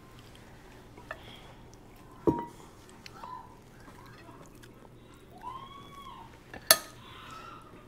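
Dishes and cutlery clinking a few times, with the loudest, sharpest clink near the end.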